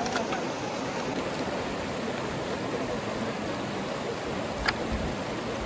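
Shallow river rushing over rocks and stones, a steady even noise. A single short click about three-quarters of the way through.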